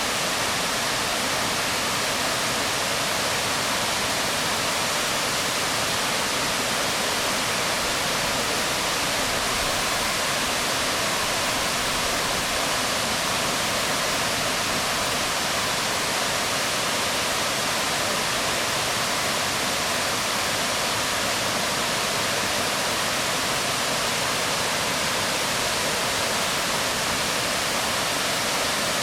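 Waterfall pouring onto rocks: a steady, unbroken rush of falling water, even and dense, without change.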